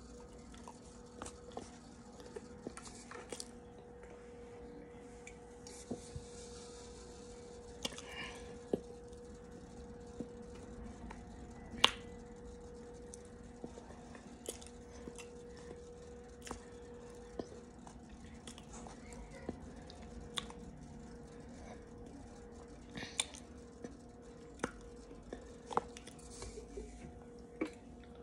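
Plastic spoon scraping and scooping powdered cornstarch in a plastic tub, with the crunching chew of the cornstarch, heard as scattered clicks and crunches over a steady low hum.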